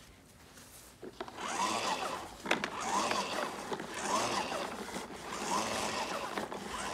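Plastic toy bubble lawn mowers pushed across grass: their wheels and bubble mechanism give a continuous rattling, whirring clatter that starts about a second in and swells and fades about every second and a quarter.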